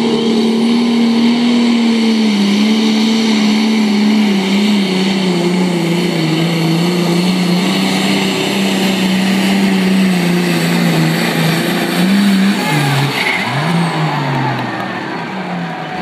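Ford 9000 pulling tractor's diesel engine running flat out as it drags a weight-transfer sled down the track, its pitch sagging slowly as the sled bears down. About twelve seconds in the note wavers and dips several times, and it falls away near the end of the pull.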